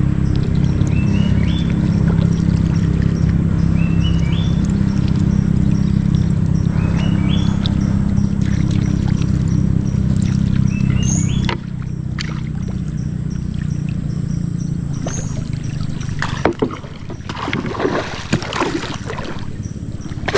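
Small boat engine running steadily, dropping to a lower, quieter run a little past halfway and fading out. Irregular knocks and water noise follow near the end.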